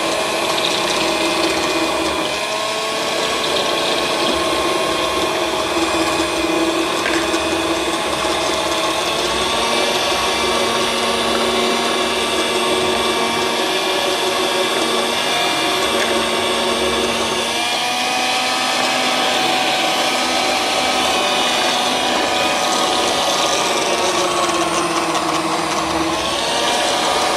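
Electric kitchen juicer motors whirring steadily: an electric citrus press spinning its reamer under orange halves alongside a cold-press juicer. The motor tone shifts in pitch every several seconds as the load changes.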